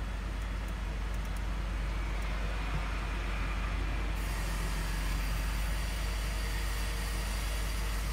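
A car engine idling, heard as a steady low rumble inside the cabin, with more hiss coming in from about four seconds in.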